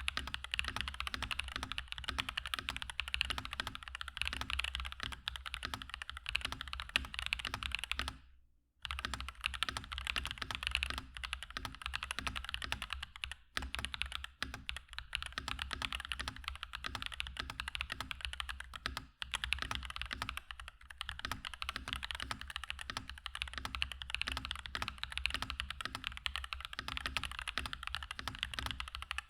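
Typing on a mechanical keyboard fitted with Akko V3 Lavender Purple Pro tactile switches, stock and unlubricated: a fast, continuous patter of keystrokes, broken by a brief pause about eight seconds in.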